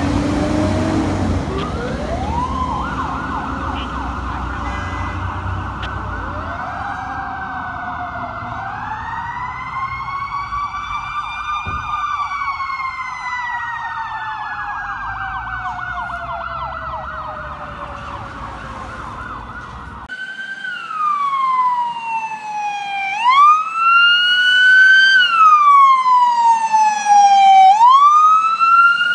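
Emergency vehicle sirens. A fire engine's siren starts with a slow wail rising and falling alongside a fast yelp. Later a louder wail rises and falls about every two to three seconds.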